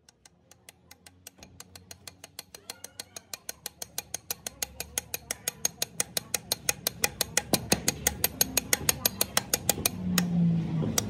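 Rapid, evenly spaced sharp ticks, about six or seven a second, fading in from silence and growing louder. A short low hum comes near the end.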